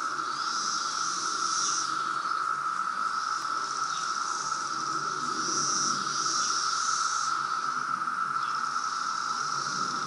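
Loud chorus of a periodical cicada brood: a steady drone held at one pitch, with a higher, hissing layer of calls that swells and fades every few seconds.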